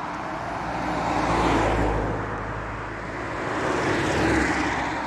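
Cars passing on a road one after the other: tyre and engine noise swells to a peak about a second and a half in, and again about four seconds in.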